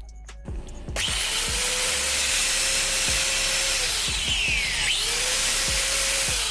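Bosch GWS 750-100 angle grinder motor switched on: it runs up to a steady high whine, then is switched off and winds down. About a second later it is started again for a shorter burst and winds down once more. This is a test run after new bearings and carbon brushes were fitted, to check that the noise problem is gone.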